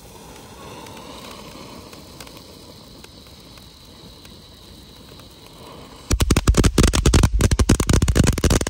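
Xplode Stromboli cone fountain spraying sparks with a steady hiss. About six seconds in, it breaks into loud, dense, rapid crackling.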